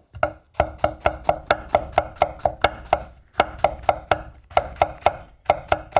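Kitchen knife chopping fresh shiitake mushroom caps into thin slices on a wooden cutting board: quick, even knocks of the blade on the board, about five a second, with a short break about halfway through.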